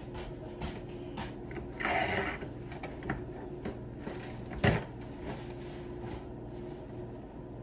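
Kitchen handling sounds from things being taken out of cupboards: a few light clicks and knocks, a short scraping rustle about two seconds in and one sharp knock just before the five-second mark, over a steady low hum.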